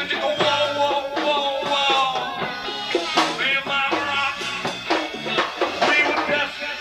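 Live rock band playing: electric guitar, bass guitar, drum kit and bongos, with a sung melody line over a steady beat.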